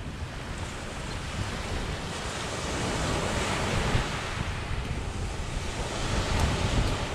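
Sea surf breaking and washing up the beach, swelling and easing, with wind buffeting the microphone.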